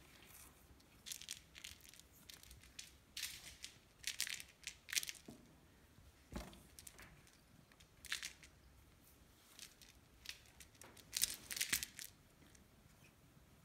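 Ragdoll kitten pawing and biting at a wand toy in a plastic cat bed: scattered short scratchy rustles and scrapes in small clusters, the loudest cluster near the end.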